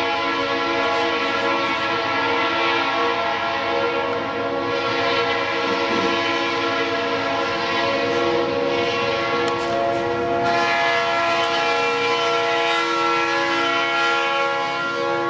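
Train horn sounding continuously, a held chord of several steady tones.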